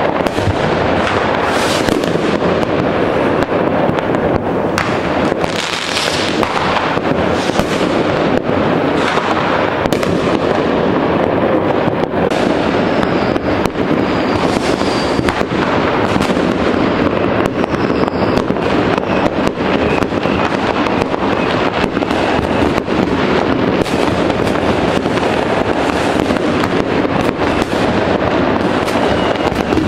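Many fireworks and firecrackers going off at once across a neighbourhood: a dense, unbroken crackle of bangs and pops, with a few faint whistles about halfway through.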